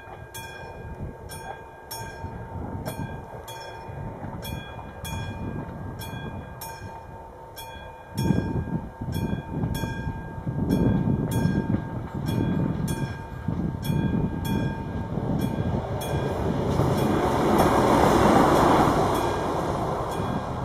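Classic mechanical bell of an AŽD 71 level-crossing warning signal ringing in steady, evenly spaced strokes while a train approaches and passes. The train's rumble builds from about eight seconds in and is loudest near the end.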